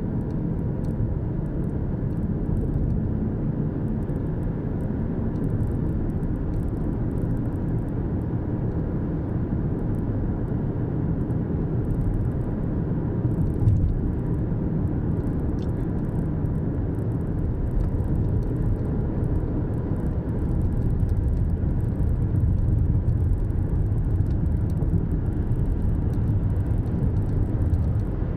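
Steady road and engine noise inside a moving car's cabin, a low rumble, with one short knock about halfway through.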